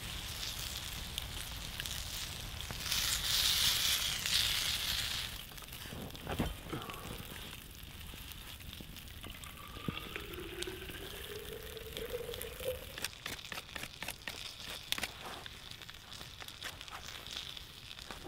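Sausages sizzling in a frying pan over a log campfire, with the fire crackling. A louder hiss comes a few seconds in, and a short rising whistle about ten seconds in.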